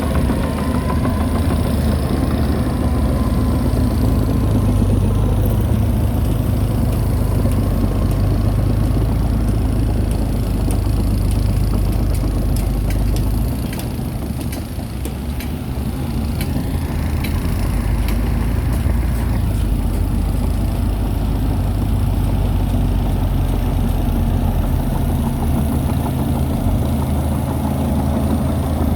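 Heavy diesel engine of earthmoving machinery running steadily. It eases off briefly about halfway through, then picks up again.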